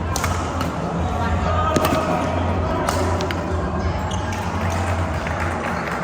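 Badminton rally: several sharp smacks of rackets hitting the shuttlecock, roughly a second apart, over the general noise of a sports hall with voices and a steady low hum.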